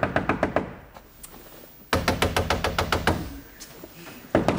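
A fist pounding rapidly on the wall of a stuck lift car, knocking for help because the alarm button is dead. The blows come in three quick runs of several knocks a second, with short pauses between.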